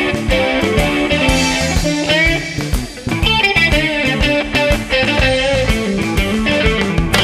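Blues band playing an instrumental break: lead electric guitar with bent notes over bass guitar and drums.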